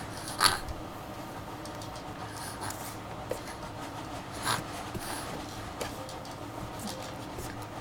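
Fabric rustling and scratching of a blanket being moved about, with two short sharp noises, one about half a second in and a fainter one about four and a half seconds in.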